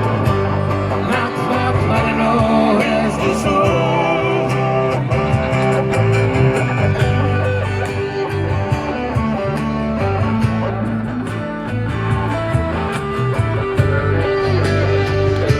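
A live band playing an instrumental passage led by guitar, over a steady bass line and drums.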